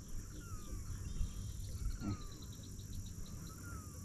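Steady high insect buzzing, with a bird giving short falling whistles about once a second and a quick run of ticks around the middle. A low rumbly noise lies underneath, with a soft knock about two seconds in.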